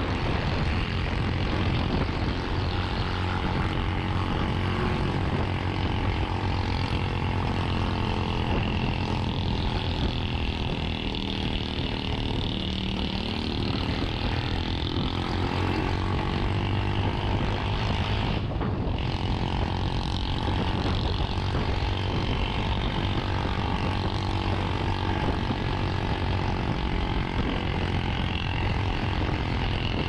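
Honda Click 125i scooter's single-cylinder engine running steadily while riding, its pitch drifting slowly up and down, with wind rush over the helmet-mounted camera.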